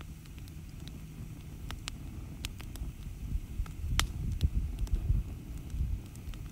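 Outdoor wood campfire burning, with scattered sharp crackles and pops from the burning logs. A low, gusty rumble swells through the middle and is the loudest part.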